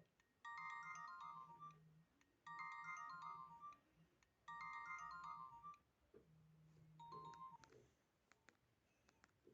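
Nokia 1616 mobile phone playing a polyphonic ringtone through its small speaker: a short melodic phrase repeats three times, about two seconds apart, then a shorter figure follows. A run of faint clicks comes near the end.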